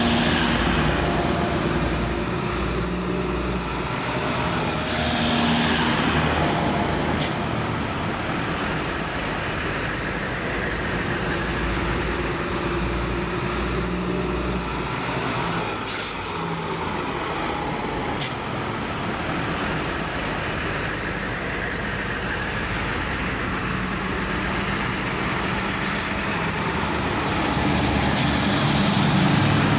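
Dubbed recording of real road traffic: lorry engines running, with vehicles passing now and then and a few short sharp hisses.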